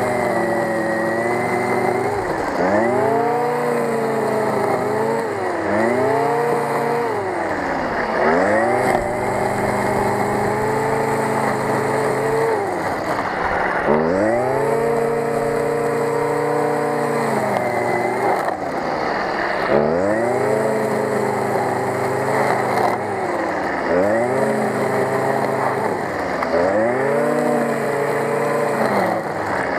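Stihl FS 55 brushcutter's small two-stroke engine running under load while its nylon line head cuts grass, the throttle opened and eased off over and over so the pitch climbs and drops every couple of seconds.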